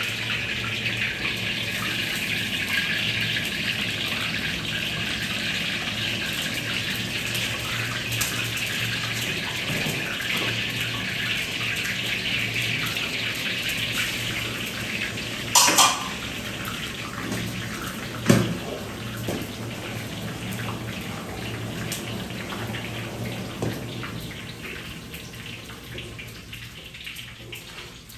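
Tadka of hot oil and spices sizzling for a pot of kadhi, a steady hiss that gradually dies down. Two sharp knocks come a little past halfway, about two and a half seconds apart.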